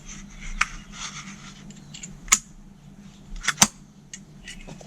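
Light handling noises: a few sharp clicks and clinks of small parts being picked up and set down, the loudest a little past halfway and about three-quarters through.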